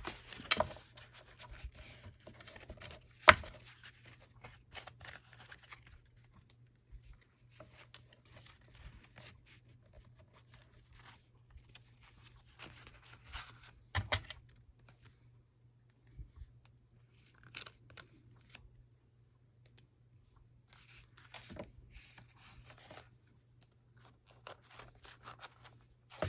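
Sheets of paper being handled and shifted on a work surface in short spells of rustling and scraping, with a sharp tap about three seconds in and another knock around fourteen seconds.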